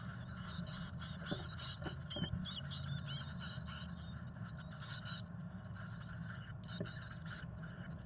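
Chickadee nestlings giving thin, high begging peeps inside a wooden nest box, mostly around two to three seconds in, over a steady low hum. A few sharp scratching knocks come as the birds move about on the nest.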